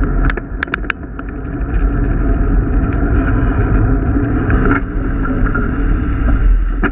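Wind buffeting a GoPro's microphone on a moving bicycle, with tyre and road rumble: a loud, steady rush, broken by a few sharp clicks just under a second in.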